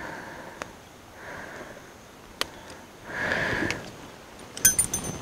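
Breathing through the nose close to the microphone, with a few faint metal clicks from handling a wire spinnerbait frame. Near the end comes a brief jingle of the metal spinner blades.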